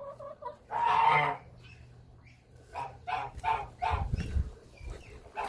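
Penned poultry calling: one loud call about a second in, then a run of short clucking calls.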